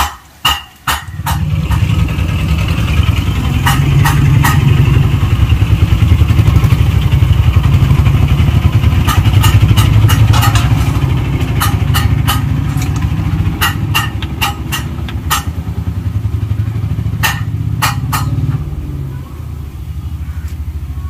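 A small engine running steadily close by, a loud low rumble with fast even pulsing, starting about a second in and easing off near the end. Under it is a faint sizzle of vada frying in oil, with scattered sharp clicks of a metal ladle against the frying pan.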